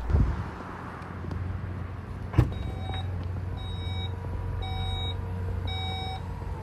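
Power tailgate of a VW Golf 8 Variant opening: a click as the latch releases about two and a half seconds in, then the electric drive hums while the warning beeps about once a second.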